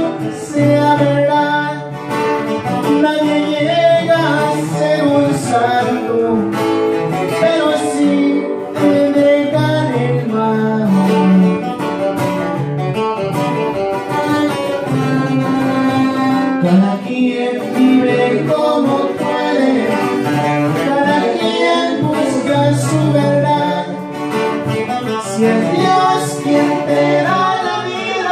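Two acoustic guitars playing a song together, picked and strummed, with a man singing along at times.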